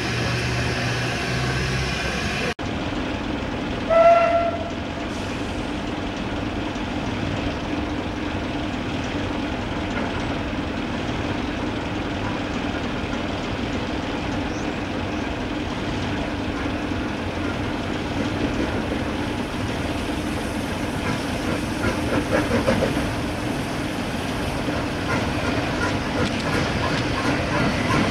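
Narrow-gauge steam tank locomotive hissing steam at close range, then, after a cut, one short whistle blast about 4 s in. A double-headed steam train is heard working toward a level crossing, the sound building toward the end as the engines reach the crossing.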